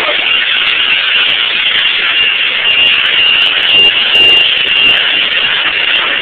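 High-pressure car-wash wand spraying soapy water onto a car's bodywork: a loud, steady hiss. A thin high whine comes and goes from about two seconds in.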